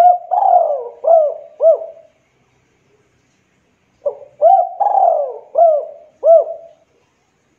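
Local Javanese spotted dove (derkuku) cooing in two phrases. The first ends about two seconds in and the second starts about four seconds in; each is a string of short rising-and-falling coos around one longer falling note.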